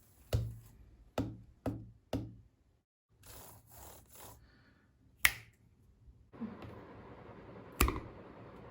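A series of sharp clicks or taps, four in quick succession, then a louder single click, followed by a steady hiss that starts about six seconds in and carries one more click near the end.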